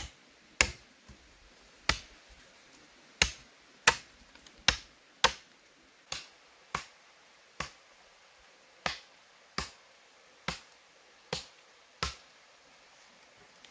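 A series of sharp, dry knocks, about fifteen in all, roughly one a second at uneven spacing, each dying away quickly.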